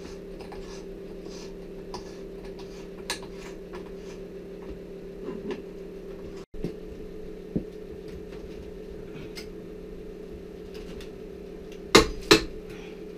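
Light metallic clicks and clinks from hand work with a special tool fitted to a BMW R1200GS final drive clamped in a bench vise, over a steady low hum. Near the end come two sharp metal knocks close together, the loudest sounds here.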